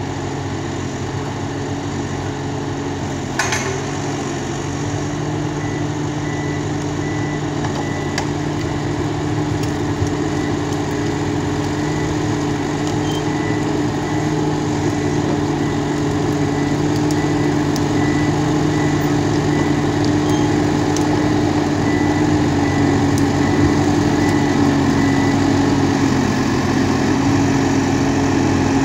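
Ponsse Wisent forwarder's diesel engine running steadily as the machine drives, slowly growing louder as it comes closer. A single sharp crack sounds about three and a half seconds in.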